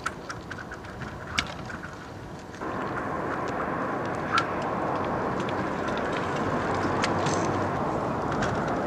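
Thin lake ice breaking up: scattered sharp, tinkling clicks of ice shards, then from about two and a half seconds in a steady dense crackling and grinding of broken ice, with a few louder cracks.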